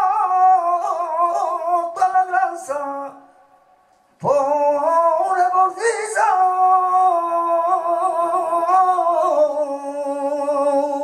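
A man singing in a flamenco style, with long ornamented notes that waver in pitch. The voice breaks off for a breath about three seconds in and comes back with a rising swoop, then holds long notes until it fades near the end.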